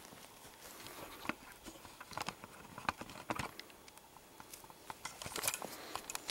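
Faint, irregular clicks and rustles of a handheld camera being picked up and carried, with footsteps on grass.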